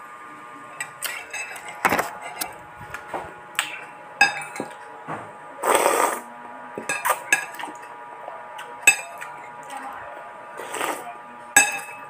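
A metal spoon and fork clink and scrape against a ceramic bowl of noodle soup in short, irregular taps. About six seconds in there is a loud slurp of thin noodles, and a shorter slurp comes near the end.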